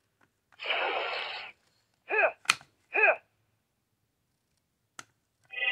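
Power Rangers Cosmic Fury morpher toy playing its electronic sound effects. A short hiss of static comes first, then three quick falling laser-like zaps. A single click follows, and a chord of electronic tones starts near the end.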